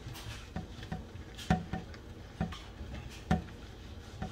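Netted dishcloth scrubbing burnt-on residue from a stainless steel frying pan holding soapy water. Half a dozen sharp knocks come from the pan as it is worked, the loudest about a second and a half in and again a little over three seconds in.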